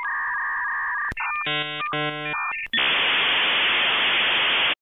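Dial-up modem handshake: steady warbling signal tones, a burst of chirping tones about one and a half seconds in, then a loud even hiss of data noise from nearly three seconds in that cuts off abruptly near the end.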